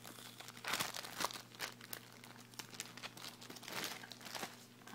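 Paper rustling and crinkling in irregular bursts as a handmade altered notebook is handled and opened.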